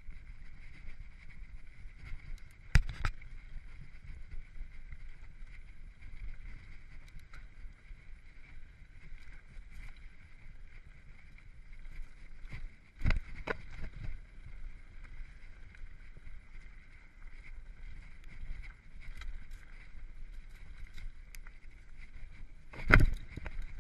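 Mountain bike descending a dirt and rock trail, heard from the bike itself: a steady low rumble of tyres and wind on the microphone with a constant high hiss. Three loud knocks as the bike hits bumps, about 3 seconds in, halfway, and near the end.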